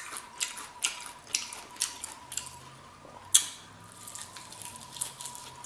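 Close-up wet mouth smacking while chewing food: a string of sharp smacks about two a second, the loudest a little past halfway.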